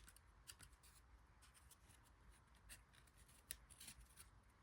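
Near silence with faint, scattered ticks and slides of trading cards being handled and flipped through, the clearest tick about three and a half seconds in.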